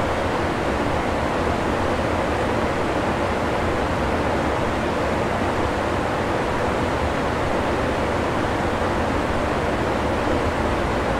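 Shallow river rushing steadily over a stony bed, a continuous, even roar of water.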